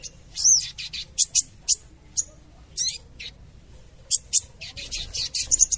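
Crimson sunbird (sogon) giving its crecetan: short, sharp, high-pitched chattering calls repeated irregularly, some sweeping in pitch.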